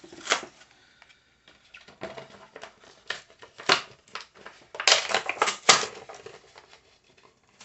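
Clear plastic packaging tray crinkling and clicking in irregular snaps as an action figure's display stand and card are worked out of it, with a dense run of clicks about five seconds in.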